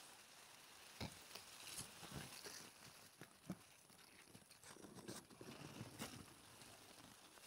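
Faint rustling and brushing of long plant leaves being pushed apart by hand, with scattered soft clicks and crackles, busiest near the end.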